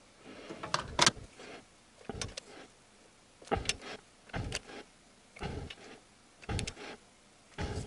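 Torque wrench tightening the camshaft cap bolts on a Honda D17A engine: short bursts of clicking, roughly one a second.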